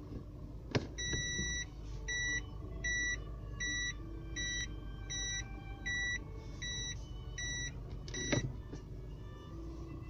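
Car's in-cabin reverse warning beeper sounding a run of about ten short, evenly spaced beeps, a little more than one a second, after a click of the automatic gear lever going into reverse. A second click near the end comes as the beeping stops. A low engine-idle rumble runs underneath.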